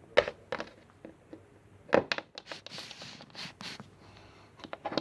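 Small plastic toy figures being moved on a hard surface: a few sharp taps with some scraping between them.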